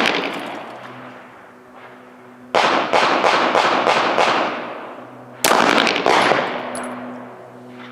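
Pistol shots on a shooting range: two shots in quick succession about two and a half seconds in, then two more about five and a half seconds in, each ringing out and dying away.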